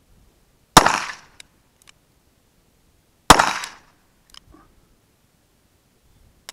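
Two shots from a .44 Special revolver, about two and a half seconds apart, each followed by a short echo. A few faint clicks come after each shot.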